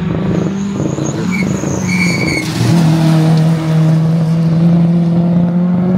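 A small hatchback rally car driving past at speed on a wet road, its engine running hard with a steady note that drops slightly about two and a half seconds in and then holds.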